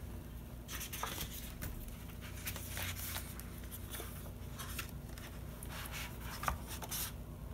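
Picture book being opened and its pages turned by hand: faint paper rustling with soft scattered taps and scrapes, over a low steady hum.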